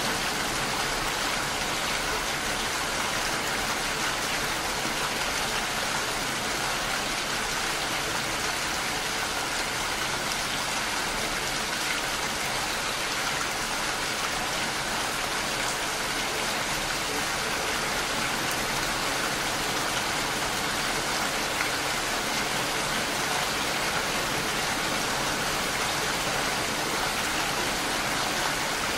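Steady rain falling, an even, unbroken hiss with no single drops or other sounds standing out.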